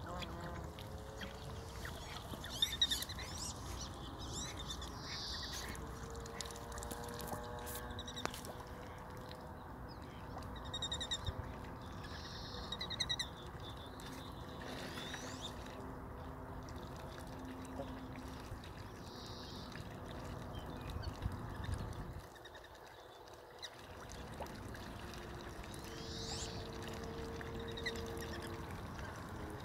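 Ducks and other birds calling now and then over a pond's steady outdoor background, with short high calls recurring every few seconds.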